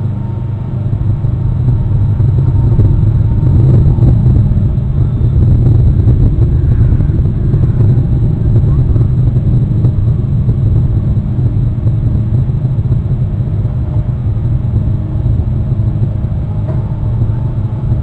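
Steady low rumble with a faint droning hum, rising in level about two seconds in.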